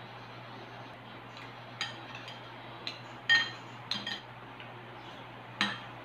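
Metal spoon and fork clinking and scraping against a ceramic bowl while scooping porridge: about six light clinks with a short ring, the loudest a little past three seconds in.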